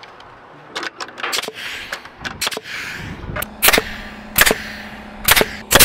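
Framing nail gun driving nails into a 2x6 wooden subfascia board: four sharp, loud shots less than a second apart in the second half, after lighter knocks and taps of the board.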